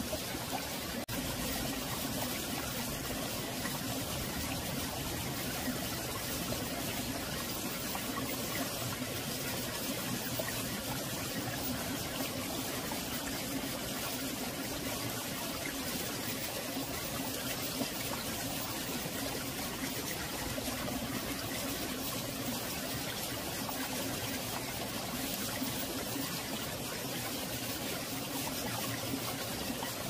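Valley stream flowing steadily: a continuous rush and trickle of water, with a bubbling sound likened to rolling marbles.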